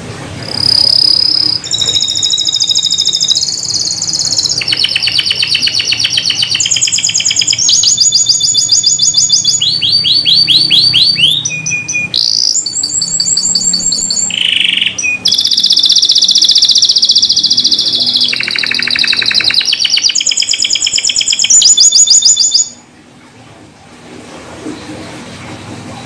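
White canary singing a long, loud, high-pitched song made of fast trills: each run of rapidly repeated notes lasts a second or two, then switches to a new pitch. The song stops abruptly a few seconds before the end.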